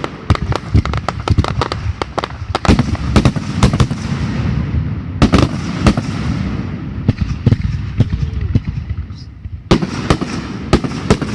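Fireworks going off: a rapid series of sharp bangs and cracks over a continuous low rumble, with a cluster of loud bangs near the end.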